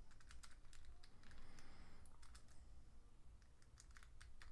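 Faint, irregular small metal clicks and scrapes of a thin lock-pick rake and tension wrench being worked in the keyway of a Master Lock No. 3 padlock, the rake jammed tight in the keyway.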